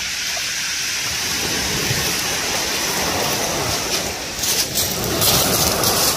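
Sea waves surging and washing over a shingle beach, a steady rushing hiss that eases briefly about four seconds in and then swells again.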